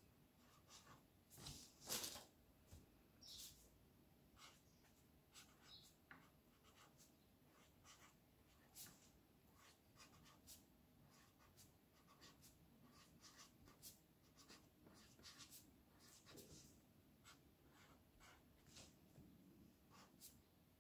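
Faint scratching of a pen writing on a square of paper, in many short, irregular strokes.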